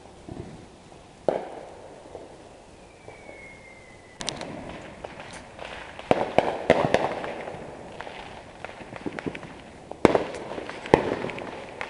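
Consumer fireworks going off: a single bang, then a rapid run of crackling reports from about four to seven seconds in, and two loud bangs near the end.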